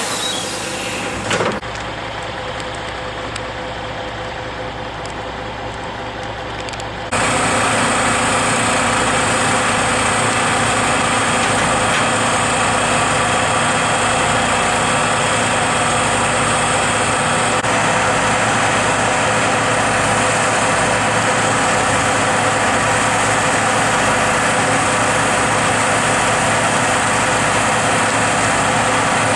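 Heavy diesel engine running steadily, with a short louder sound about a second and a half in. About seven seconds in the sound jumps abruptly louder and brighter, then holds steady.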